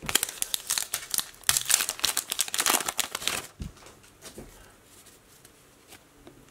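Foil trading-card pack wrapper crinkling and being torn open, a dense crackle for about three and a half seconds, then only a few faint handling ticks.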